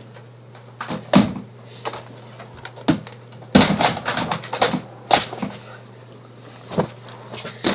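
Irregular clicks and knocks of a plastic Nerf blaster being handled close to the microphone, about eight in all and bunched together around the middle.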